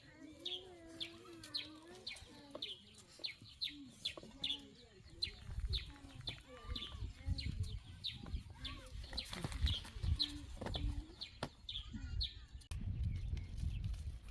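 A bird chirping over and over, about two short high chirps a second, with chickens clucking lower down. A low rumble joins about five seconds in.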